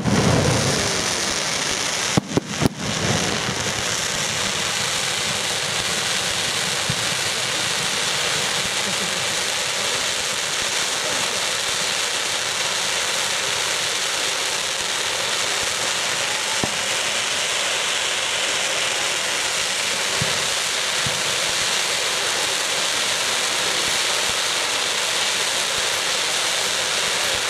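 Fireworks going off: a quick run of sharp bangs about two seconds in, then a steady rain-like hiss.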